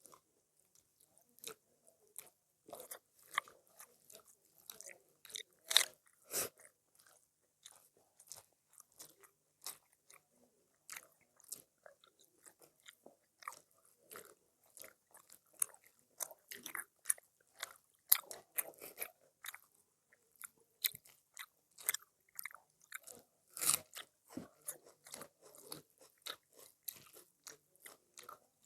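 Close-up eating sounds: chewing with many sharp, irregular crunches and bites.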